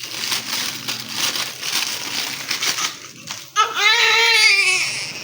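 Newborn baby crying: a few seconds of rustling handling noise, then one loud cry starting about three and a half seconds in.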